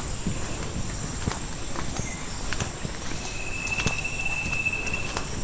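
Footsteps on a dirt path, soft irregular treads about once a second, over low outdoor rumble. In the second half a thin steady high tone, an insect or bird, holds for about two seconds.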